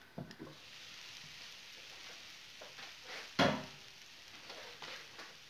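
Zucchini sizzling in a hot frying pan, a steady hiss, with a few light knocks of pan and utensils and one louder clatter about three and a half seconds in.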